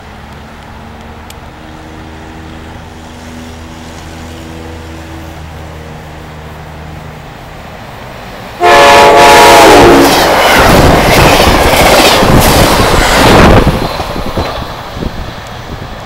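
Amtrak train's Nathan K5LA five-chime horn sounds one loud blast of about a second and a half, about eight and a half seconds in, as the train passes close at speed with a loud rushing noise that dies away about two seconds before the end. Before the horn a low steady hum of the approaching train.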